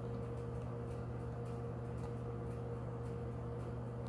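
A steady low electrical hum with a faint hiss and a few faint ticks.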